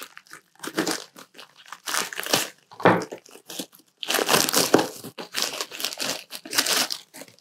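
White plastic poly mailer bag being slit with a pocket knife and then torn open by hand, in irregular rustles and crinkles. About four seconds in the crinkling grows louder and denser as the bag is pulled apart around its contents.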